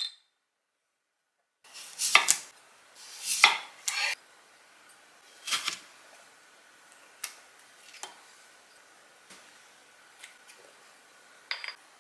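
Knocks and clinks of stainless steel vegetable cutters and a daikon radish slice set down on a wooden cutting board, loudest in the first few seconds. Softer clicks follow as a flower-shaped cutter is pressed into the daikon.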